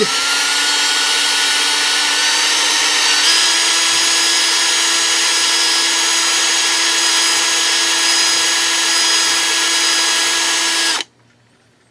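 Cordless drill running at low speed, its twist bit boring through a plastic screwdriver handle. The steady motor whine steps up slightly in pitch about three seconds in and cuts off sharply about a second before the end, as the bit breaks through.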